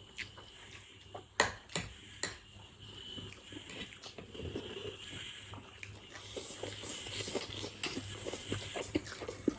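Close-miked chewing of pork chowmin noodles, mouth sounds and small wet ticks, getting busier in the second half. There are three sharp clicks a little over a second in.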